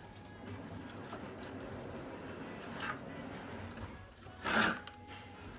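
Scooter parts being handled and slid into place: low rubbing and scraping, with a short, louder scrape about four and a half seconds in.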